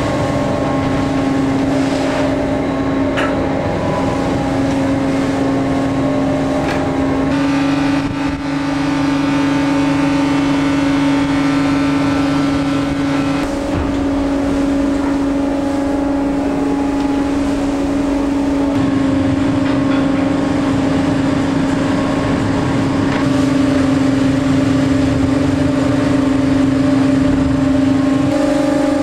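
Fishing boat's engine running steadily, heard inside the wheelhouse as a constant drone. A higher whine joins it for several seconds about a third of the way in.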